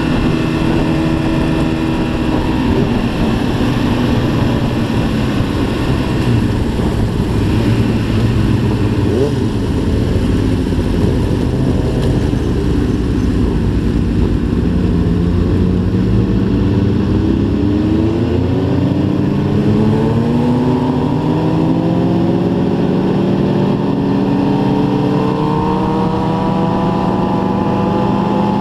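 Onboard sound of a sport motorcycle's engine running while riding, over road and wind rumble; in the second half the engine note climbs slowly as the bike accelerates.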